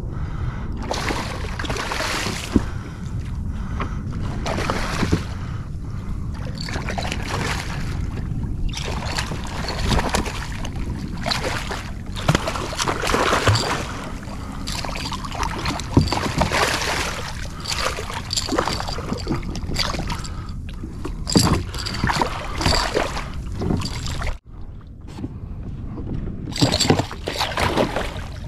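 Water splashing and sloshing as a hooked striped bass thrashes at the surface beside a fishing kayak, in irregular bursts, over a steady low rumble of wind on the microphone. The sound briefly cuts out near the end.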